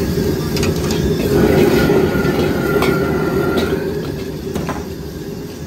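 Stir-frying over a gas wok burner: the burner gives a loud, steady rushing noise, and the metal ladle strikes the wok several short times.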